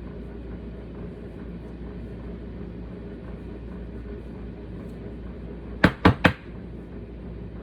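Three sharp knocks in quick succession about six seconds in, over a steady low hum.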